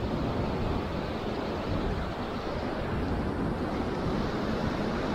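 Steady rushing wind, with low buffeting of wind against the microphone.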